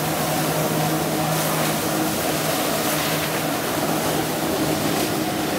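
Personal watercraft engine running steadily at high revs to drive a flyboard, with the hiss of the water jets spraying under the rider.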